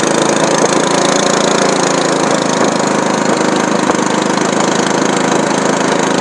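Small boat's motor running loud and steady at an even speed, with no change in pitch.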